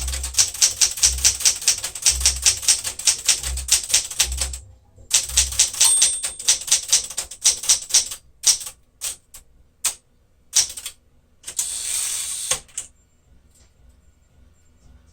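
1975 Smith-Corona Galaxie Twelve typewriter being typed on fast: rapid, even keystrokes, a short pause, more keys with a brief bell ding about six seconds in, a few single strokes, then a longer rattling sweep near the end as the carriage is returned.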